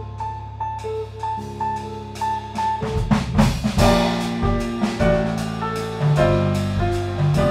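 Small jazz band playing live: electric bass, piano, electric guitar and drum kit. A repeated high figure runs over held bass notes, then about three seconds in the drums and the band come in fuller and louder.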